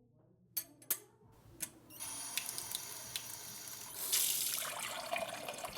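A few sharp clicks, then water starts running steadily, like a tap into a sink, getting stronger about two seconds later.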